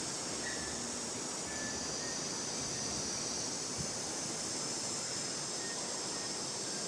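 Steady outdoor ambient noise with a constant high-pitched hiss, and a few faint short chirps here and there.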